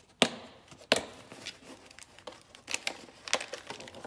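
A new torque wrench being taken out of its long hard plastic case and plastic wrapping: two sharp clacks about a quarter second and a second in, then plastic crinkling and rustling with scattered light knocks.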